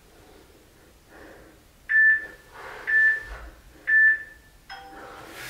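Workout interval timer counting down. Three short, high beeps come a second apart, then a final beep of a different, lower pitch near the end marks the end of the exercise interval. Breathing is heard between the beeps.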